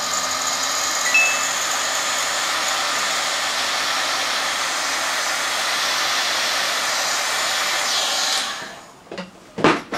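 Hot-air gun blowing steadily to shrink heat-shrink tubing over a small fan's wires, with a short high beep about a second in; the airflow cuts off about eight and a half seconds in, followed by a couple of knocks.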